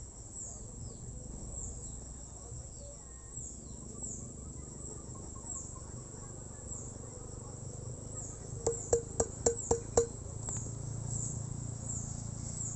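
Six quick, sharp metallic taps with a short ring about nine seconds in. Behind them, an insect chirps a short falling note about once a second.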